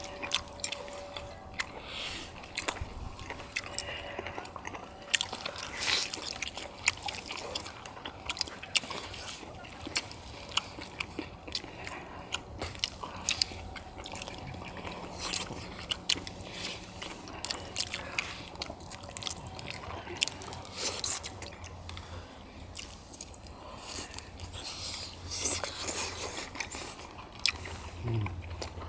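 Close-up eating sounds: several people chewing and biting chewy baby octopus and chicken, with frequent short sharp clicks and mouth noises.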